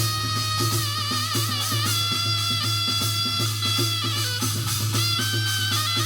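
Korean shamanic ritual (gut) music: a drum keeping a steady beat of about two to three strokes a second under held, ringing tones and a wavering melody line.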